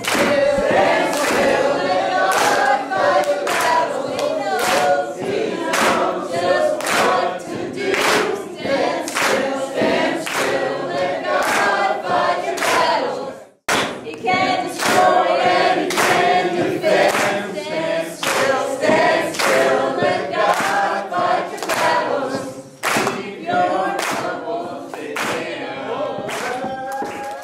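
A group of men and women singing a chant together in chorus, with steady hand clapping on the beat. There is a brief break about halfway through.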